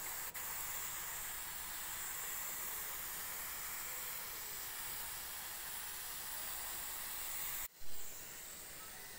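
Green hand-pump pressure sprayer misting water onto potting soil: a steady hiss of spray. Near the end the hiss cuts out for a moment, comes back with a short louder burst, and goes on slightly quieter.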